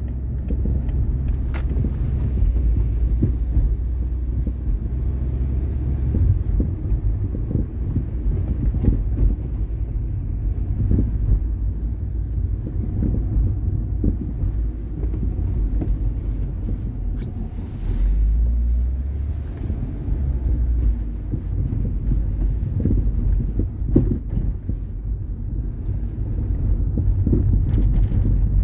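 Citroën Xsara Picasso on the move: a steady low road rumble with irregular short knocks and rattles from the suspension, the rattling fault the car has.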